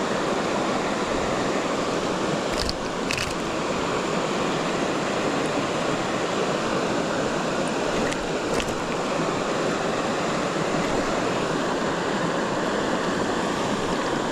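Creek water flowing with a steady rush, with a few faint clicks.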